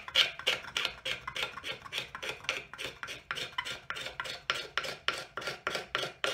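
Wooden axe handle being scraped with a hand scraper in quick, even back-and-forth strokes, about five a second. A little wood at a time is taken off the handle's top end below the line, fitting it to the axe head's eye.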